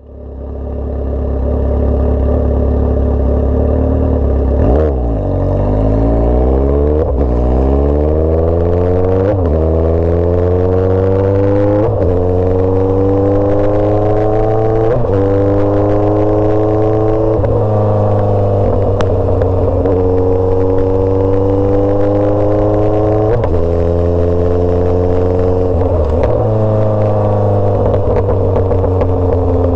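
Motorcycle engine under way, its revs climbing and dropping back at each gear change every two to three seconds, then holding nearly steady between shifts. The sound fades in over the first second.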